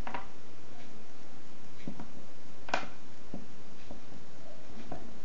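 Small clicks and taps of spinning-reel drag washers being set down one at a time on a paper towel over a wooden table, about six spread over a few seconds, over a steady hiss.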